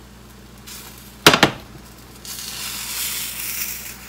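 A sharp clatter of the frying pan and metal spatula about a second in, then a Dutch pancake frying in the pan with a steady sizzle from about halfway on.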